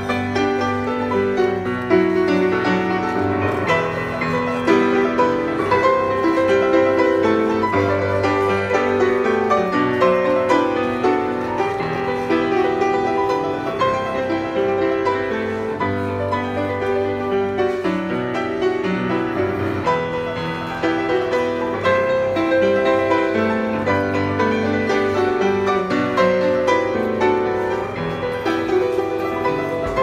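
Yamaha grand piano played live: one continuous piece of chords and melody, with no pause.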